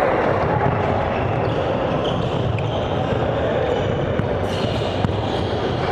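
A basketball bouncing on a hardwood gym floor as it is dribbled, over the steady background noise of an indoor game with faint voices.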